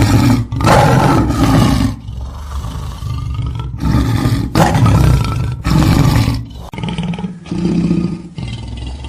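Lion roaring: a series of loud, deep roars, then, after a sudden change in the recording about two-thirds of the way in, a run of shorter, quieter calls.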